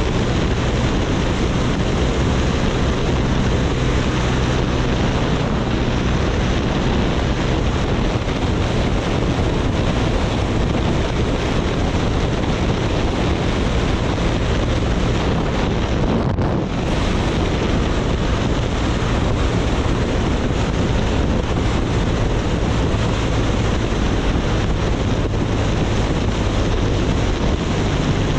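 Heavy wind rush buffeting the helmet-mounted microphone at freeway speed, with the steady low drone of the BMW R nineT's air/oil-cooled boxer-twin engine underneath.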